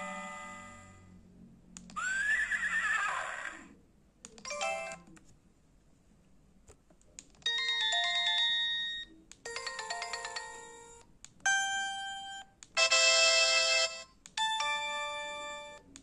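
LG G5410 mobile phone previewing its built-in message tones and EMS alert sounds one after another: a string of short synthetic jingles and chimes, each lasting a second or two with brief pauses between, one of them a pitch that rises and falls about two seconds in.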